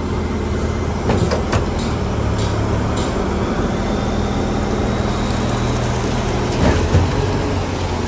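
Diesel engine of a Mack truck carrying a Schwing concrete pump, running steadily. A few sharp clanks come between about one and three seconds in, and a heavier low thump comes near the end.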